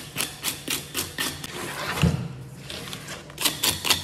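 Rapid, rhythmic strokes of a metal fish scaler scraping scales off a mutton snapper, about four strokes a second, with a pause about a second and a half in and one heavy low thump about two seconds in.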